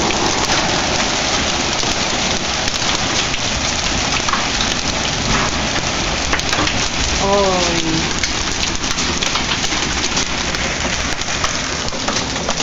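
Hail and rain pounding down in a dense, steady hiss, with many sharp ticks of hailstones striking. A brief wavering call sounds about seven seconds in.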